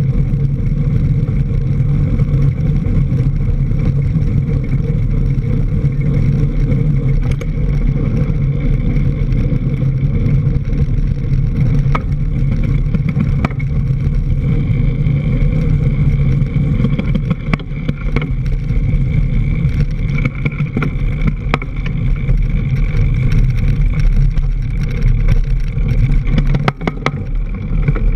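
Mountain bike riding fast on a dirt trail, heard from a camera on the front fork: a loud, steady rumble of wind on the microphone and tyre on dirt, with scattered clicks and knocks as the bike goes over bumps.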